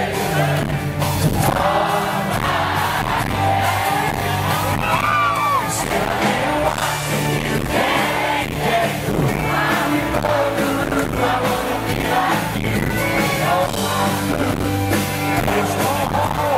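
Live band music with a male lead singer singing over guitar and a steady bass line.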